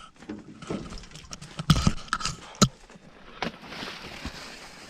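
Footsteps on hard, rocky ground: a few sharp knocks and scuffs, the loudest about two seconds in, followed by a short stretch of scraping.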